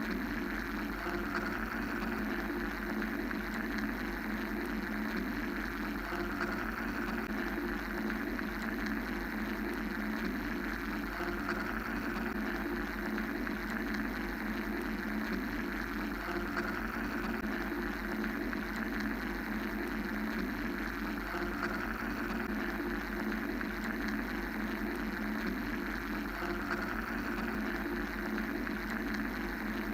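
Steady mechanical droning noise, a continuous hum with a hiss over it that slowly swells and fades about every ten seconds.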